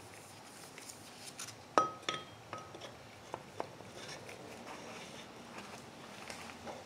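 Light metallic clinks as a new 1-inch axle shaft is slid through its bushing into a Hydro-Gear transaxle housing. Three come close together about two seconds in, each ringing briefly, followed by a few fainter ticks.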